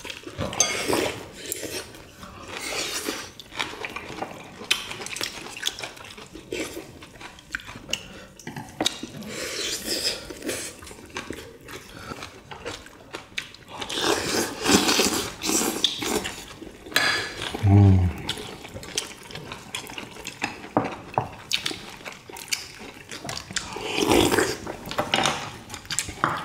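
Eating at the table: spoons and chopsticks clicking against bowls, with slurping of kimchi stew broth, and a short voiced hum about two-thirds of the way in.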